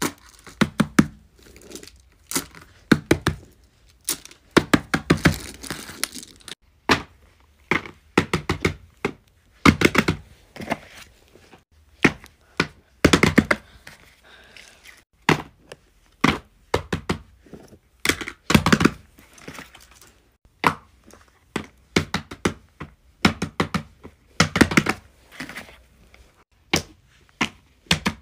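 Fidget toys being handled: clusters of sharp clicks, taps and thunks with some crinkling, coming one after another in quick bursts.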